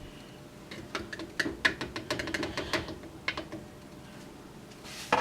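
A big spoon scooping yogurt, tapping and scraping against the container: a quick run of light clicks for a couple of seconds, then a louder knock at the very end.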